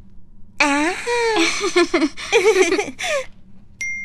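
Girls laughing in several bouts. Near the end a single electronic doorbell chime starts sharply and holds as a steady high tone.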